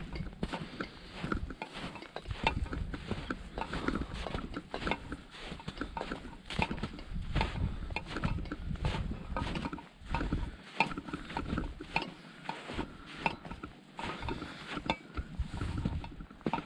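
Footsteps crunching in snow, an irregular run of short crunches, with wind rumbling on the microphone.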